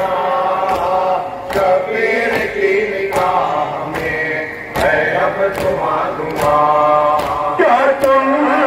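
A group of men chanting a Shia mourning lament (nauha) in unison, with the flat-handed slaps of matam (chest-beating) keeping a steady beat of roughly one strike every 0.8 seconds.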